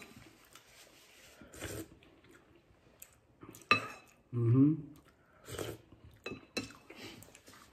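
Metal spoon clinking against a ceramic bowl of rice porridge as it is scooped up: a few separate short clinks a second or two apart. About halfway through there is a short hummed 'mm' from the eater, the loudest sound.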